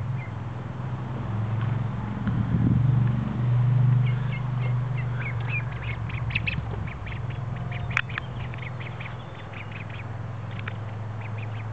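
Young white ducks calling in short, high, quick peeps and quacks, thickest from about four seconds in, over a steady low hum. A single sharp click comes near the middle.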